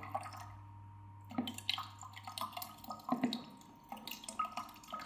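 Apple vinegar trickling from a glass bottle through a small funnel into a plastic sprayer bottle, with a few soft knocks.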